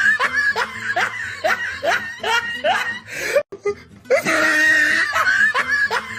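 An evil laugh sound effect: a run of quick, pitched "ha-ha" bursts, about two to three a second. The laugh cuts out briefly about three and a half seconds in and starts over, as a loop.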